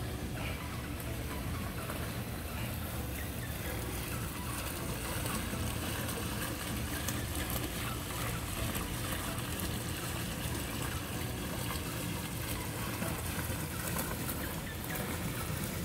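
Steady splashing and trickling of swimming-pool water: thin fountain jets arcing into the pool and a small rock waterfall spilling over.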